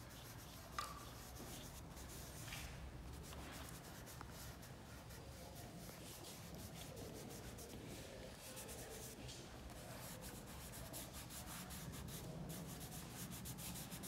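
Dry pastel rubbing faintly across drawing paper in repeated strokes, with a single sharp click about a second in.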